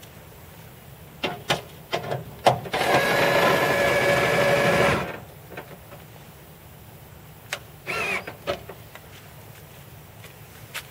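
Scattered clicks and knocks, then a small electric motor whirs steadily for about two seconds and stops. A few more clicks and a short squeak follow.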